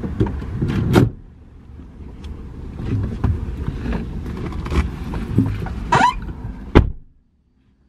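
Rustling, bumping and knocking inside a car as a person climbs into a front seat and settles in, with a few sharp knocks along the way. It ends with one loud, sharp thump, after which the sound cuts off abruptly.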